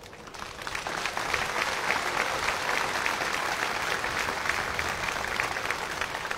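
Crowd applauding. The clapping swells over the first second, holds steady, and starts to thin near the end.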